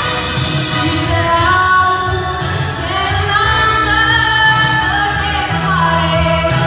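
A young woman singing a melody into a handheld microphone, amplified through a PA, over instrumental accompaniment with a steady bass line.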